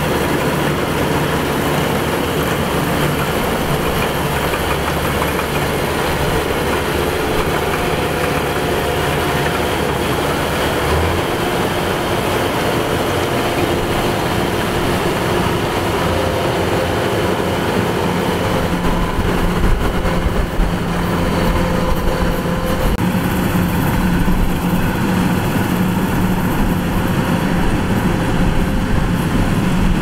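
Kubota DC-105X combine harvester running steadily: its diesel engine and harvesting machinery make a dense, continuous machine noise. The engine's low note shifts about eleven seconds in.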